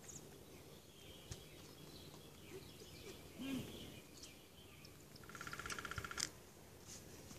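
Faint outdoor street ambience with scattered bird chirps, and a rapid trill lasting about a second that starts about five seconds in.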